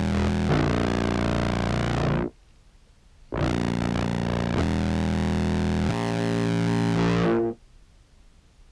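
Contrabass clarinet samples played through a fuzz and filter pedal chain: two long, distorted, buzzy notes, the first ending about two seconds in and the second starting a second later and cutting off near the end, each followed by a short silence.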